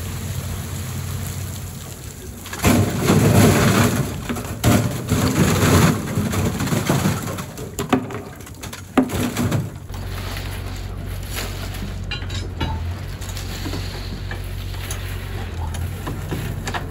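Seawater pouring and dripping off strings of oysters hoisted out of the sea, like heavy rain, with a louder rush and several sharp knocks as the oyster clusters clatter into wire baskets. From about two-thirds of the way in, a steady low machine hum of the boat's hoist runs under the dripping.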